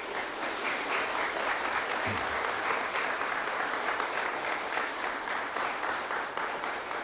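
A crowd of guests applauding, many hands clapping steadily and easing slightly near the end.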